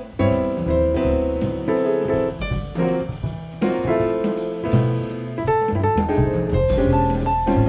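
Live small-group jazz: a grand piano plays over upright double bass and drum kit, with the piano out in front.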